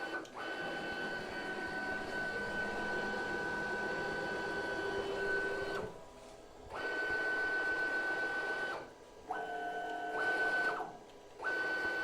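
Stepper motors (3 Nm, on Leadshine DM556 drivers) moving the rack-and-pinion axes of a DIY CNC router: a steady high whine while an axis travels, stopping briefly three times between moves, with one move at a lower pitch near the end.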